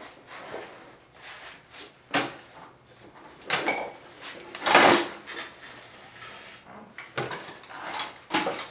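A string of irregular clunks and scrapes from objects being handled and shifted, the loudest about five seconds in.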